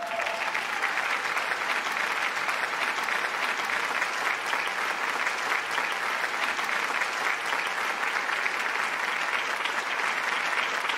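An audience applauding steadily, a dense, even clapping.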